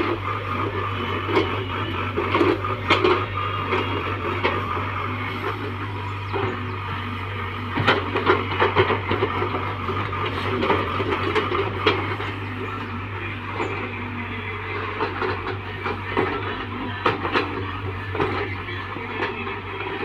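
Small tracked excavator's diesel engine running steadily under load while its steel bucket scrapes and digs into a loose soil mound, with frequent knocks and clanks from the bucket and arm.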